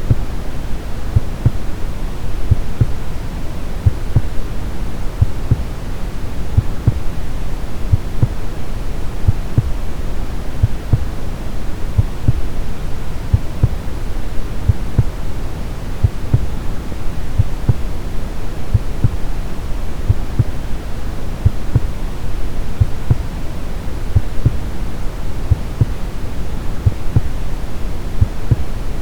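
Brown noise, a steady deep hiss, with a heartbeat's low thumps repeating evenly over it.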